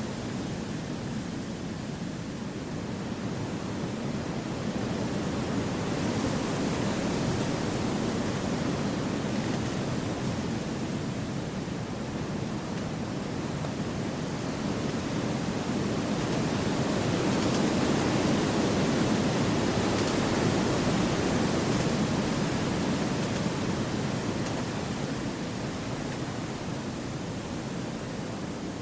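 Wind rushing through forest trees: a steady, even noise that swells and eases in slow gusts and is loudest a little past the middle.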